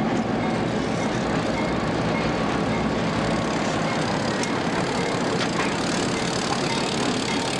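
Diesel engines of end-cab switcher locomotives running steadily as the locomotives roll slowly past, a constant low engine drone over a wide rumble, with a few faint clicks.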